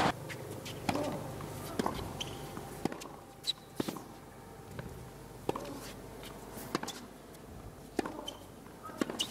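Tennis rally: rackets striking the ball and the ball bouncing on the court, sharp knocks every second or so over a hushed crowd.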